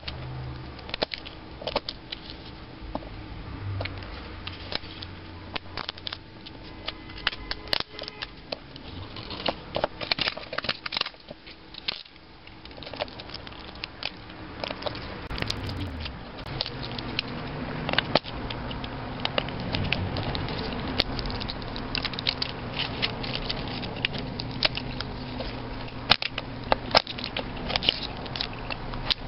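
A knife blade prying and scraping apart the stacked flat cells inside a 9-volt battery: irregular sharp clicks and crackles with scraping, some clicks much louder than the rest.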